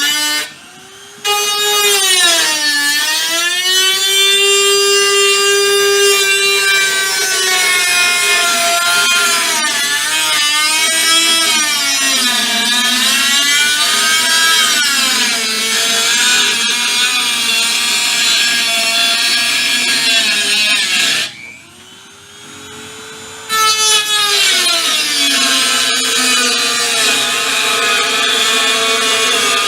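Handheld power tool working sheet-metal body panels, its motor pitch sagging and recovering as it is pressed into the work. It stops twice, briefly near the start and for about two seconds two-thirds of the way through, and each time spins back up.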